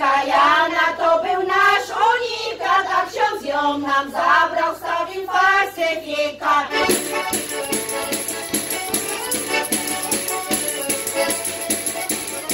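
Several women's voices singing a folk song together. About seven seconds in the singing stops and a quick, steady rhythmic instrumental accompaniment carries on alone.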